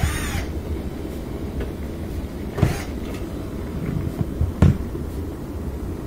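Cordless drill driving screws in short bursts, one right at the start and another about two and a half seconds in, followed by a few sharp knocks about four seconds in. Underneath is the steady low hum of a dishwasher's circulation motor running and pushing water around.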